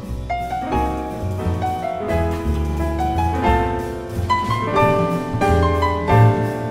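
Grand piano playing a busy line of chords and melody, with a double bass walking low notes underneath, as part of a live piano trio.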